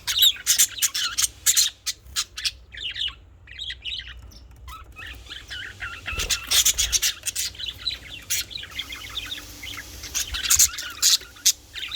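Pet budgerigars chirping and chattering in quick, sharp bursts of high calls, with a short lull about three seconds in.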